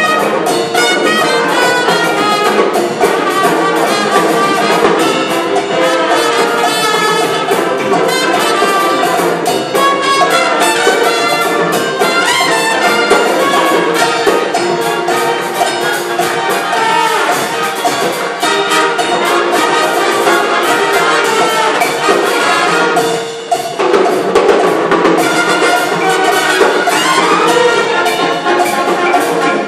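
Full symphony orchestra playing a Cuban dance piece, brass heard over strings and percussion, with a brief drop in sound about 23 seconds in before the ensemble comes back in.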